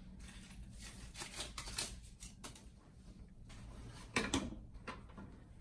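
Rustling and light clicking as the bassinet's mesh-covered hard-plastic basket is handled and worked into its wooden stand, with a louder burst of knocks and rustling about four seconds in.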